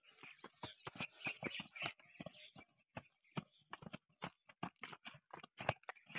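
Footsteps of several runners coming down stone steps in running shoes: quick, irregular slaps and knocks of soles on the stone, several a second, overlapping as the runners pass.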